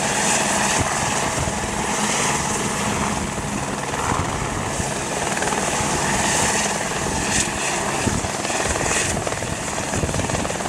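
Helicopter hovering low, its rotor beating and engine running steadily, while it draws water up a snorkel hose to refill its tank.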